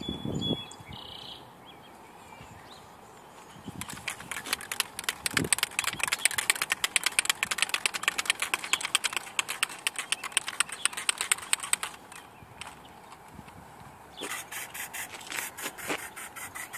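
Aerosol can of Plasti Dip being shaken, its mixing ball rattling in fast, even clacks. There are two spells: a long one of about eight seconds, then a shorter one near the end.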